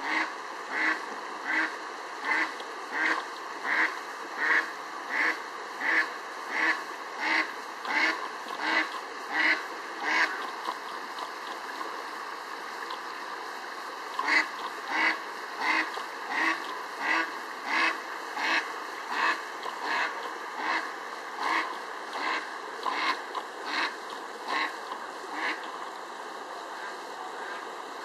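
Female mallard quacking in a long, even series of calls, about three every two seconds, breaking off for a few seconds about ten seconds in and then starting again. A mountain stream runs steadily underneath.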